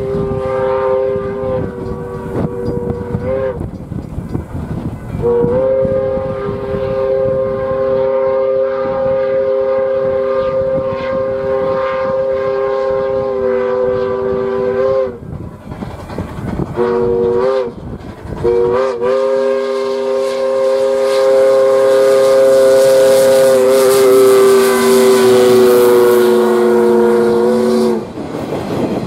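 Steam locomotive USSC 148's Powell three-chime whistle blowing the grade-crossing signal, long, long, short, long, as the train comes on at speed. Each blast is a steady chord that sags slightly in pitch as it ends. During the last long blast the clatter of the passing train swells up.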